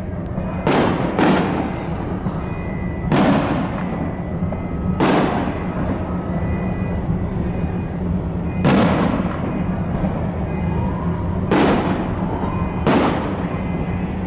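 Fireworks display: aerial shells bursting one after another, seven loud bangs spaced one to three seconds apart, each trailing off in a fading echo.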